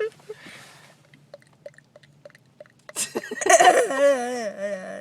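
Faint, wet tongue clicks made in the mouth, several in a row, imitating a dog lapping water from a bowl. About three seconds in, a loud, drawn-out vocal sound from a person takes over.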